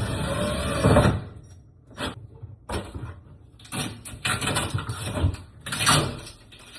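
A series of scrapes and knocks from something being handled: one long scrape through the first second, then about five shorter scrapes.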